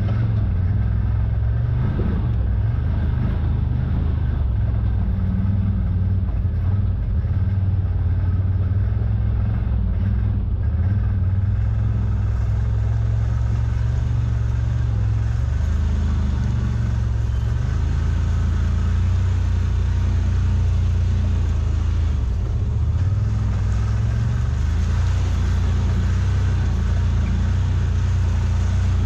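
CFMOTO ZForce 950 side-by-side's V-twin engine running steadily with a low drone, its pitch dipping and rising a little a couple of times.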